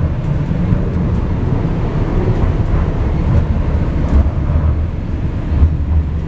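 Passenger train running, heard from inside the car: a steady low rumble with a few faint ticks and rattles.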